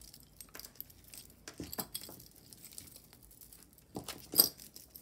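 Costume-jewelry chains and beads clinking and jingling as a tangled pile is picked through. Scattered light clicks, with a louder clatter about four seconds in as a chain necklace is pulled free.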